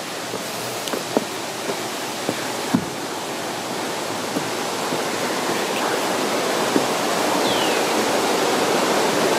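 Rushing water of a rocky stream's rapids, a steady noise that grows gradually louder, with a few light knocks of footsteps on the bridge's wooden steps.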